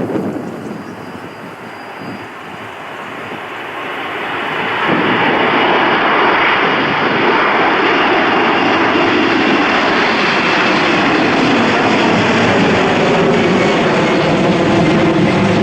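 Airliner's jet engines growing louder over the first five seconds as the aircraft approaches, then a loud, steady engine noise as it passes close by. Wind buffets the microphone at the start.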